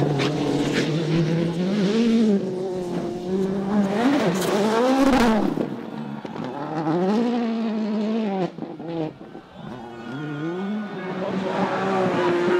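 Rally car engine revving hard, its pitch climbing and dropping repeatedly with throttle and gear changes. It dips quieter around nine seconds in, then the engine note rises again near the end.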